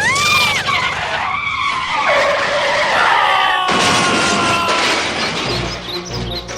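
Vehicle sound effects: a short rising-and-falling squeal, then a long screech that slides slowly down in pitch, like tyres skidding. Light music starts near the end.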